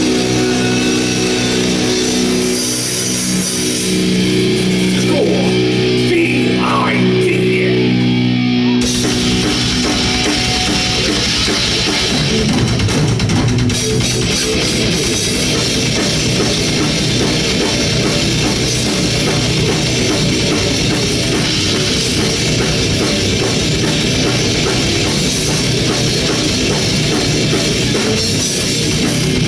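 A live rock band playing loud and distorted. Held, ringing guitar chords open the song, and the full band with drums comes in about nine seconds in and plays on.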